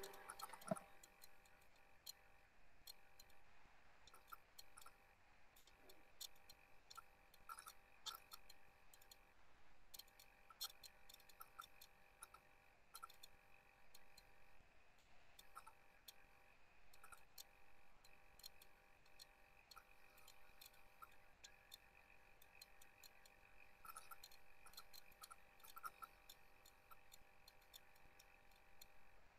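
Near silence: faint room tone with a few scattered, irregular faint clicks.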